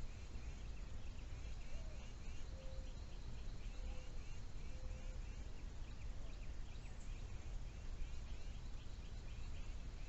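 Outdoor ambience: a steady low rumble under a continuous run of quick, high chirps from small creatures, with three short low tones near the middle.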